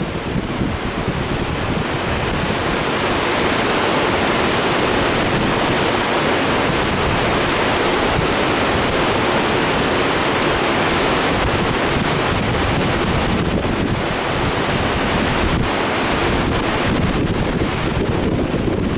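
Steady rush of a creek running high and turbulent after rain, pouring over and below a dam, with wind buffeting the microphone.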